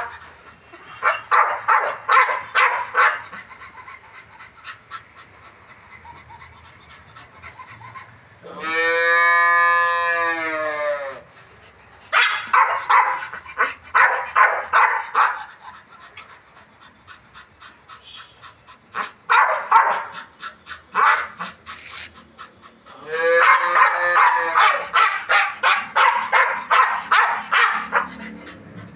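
A pit bull terrier barking in quick volleys of about four or five barks a second, with one long drawn-out howl about a third of the way in.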